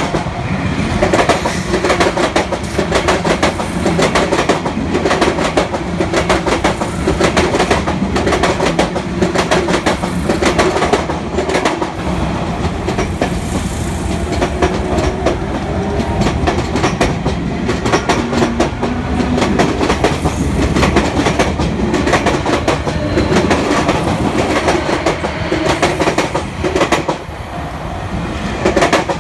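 Sotetsu electric train's wheels clacking over the rail joints at a level crossing as the cars pass, a continuous run of loud clickety-clack strokes. The sound dips briefly near the end.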